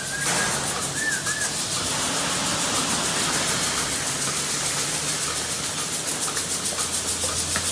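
Milking machinery running in a rotary milking parlour: a steady hiss with a fast, regular pulsing over a low hum. Two short squeaks about a second in.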